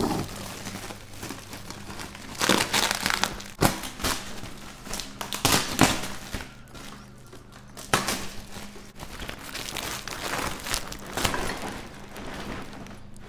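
Brown packaging tape and a woven plastic tarpaulin crinkling and rustling as a wrapped bundle is cut and pulled open by hand, in irregular bursts, several of them louder than the rest.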